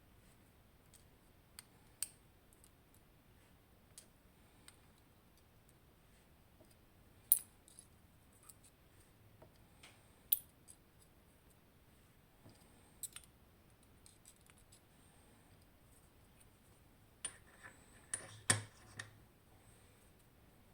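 Scattered sharp clicks and taps as the driver pins are taken out of a Nemef NF2 pin-tumbler lock's housing: single clicks every few seconds, the loudest about seven and ten seconds in, and a short cluster of clicks near the end.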